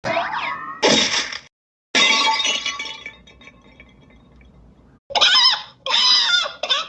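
A run of separate cartoon sound effects with short silent gaps: a gliding whistle-like tone, a short noisy burst, then a crash like glass breaking that fades away over about a second. Near the end, warbling gobble-like calls begin.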